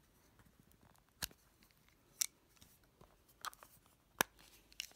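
Sharp clicks of bronzer compacts being handled and snapped open, their hinged mirror lids unlatching, about five separate clicks over a few seconds, the loudest near the end.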